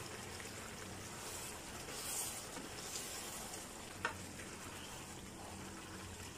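Vegetable and tomato sauce sizzling gently in a frying pan while it is stirred with a plastic spatula: a steady soft hiss, a brief louder scrape about two seconds in, and a single sharp click of the spatula about four seconds in.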